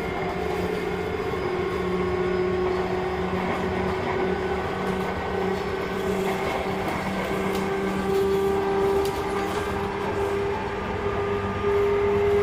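Running sound of a Sotetsu 8000 series electric train: a steady rolling rumble with electric whine tones from the drive that step up in pitch about halfway through and again near the end.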